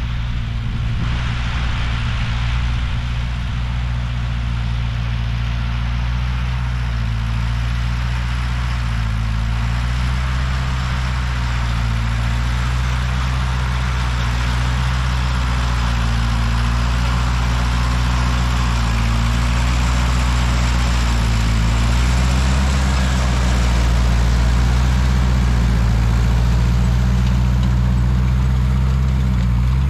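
Tractor engine running steadily close by, its pitch dipping slightly and recovering now and then.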